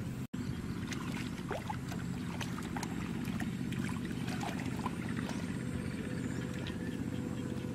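A steady low rumble with light splashing and sloshing of hands working through shallow muddy paddy water. The sound cuts out completely for an instant just after the start.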